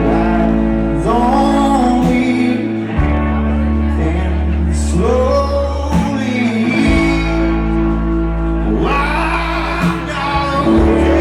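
A live rock band playing, with sustained bass and guitar under sung vocal lines that come and go. The hall's room sound is audible in the mix.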